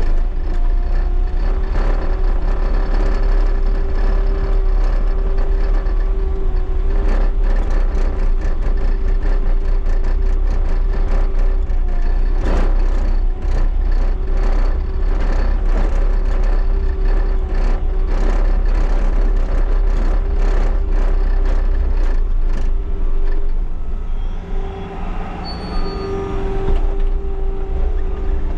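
Bobcat T77 compact track loader's diesel engine running steadily under load, with a constant whine and many knocks and rattles through the middle; the engine eases off briefly near the end.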